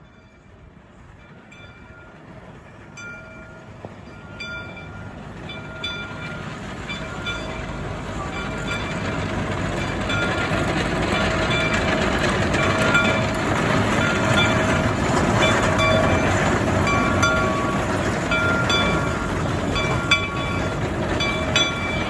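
Shay geared steam locomotive pulling passenger cars, growing steadily louder over the first ten seconds or so as it approaches, then holding loud as it passes close by. There are short repeated high tones and a few sharp clicks over the running noise.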